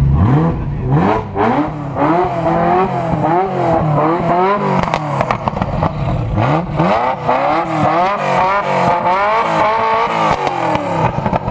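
Ferrari F40's twin-turbo V8 being revved while parked, blipped again and again so its pitch rises and falls in quick waves, with sharp crackles in between.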